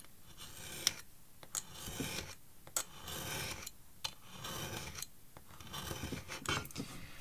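Craft knife drawn along a steel rule through very thin card on a cutting mat: about five light, scratchy strokes, each roughly a second long, with a few small clicks between them. It is several light passes rather than one heavy cut, so as not to warp the thin card.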